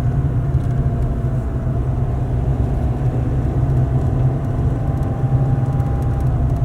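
A car being driven at a steady pace: a constant low rumble of engine and tyres, with a faint steady whine above it.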